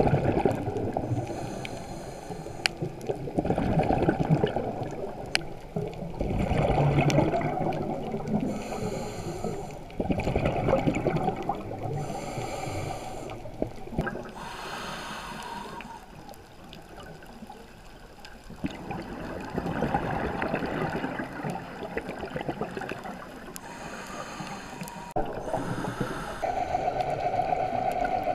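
Scuba diver's breathing through a regulator, heard underwater: bursts of exhaled bubbles gurgling and rumbling every three to four seconds, alternating with the hiss of each inhalation.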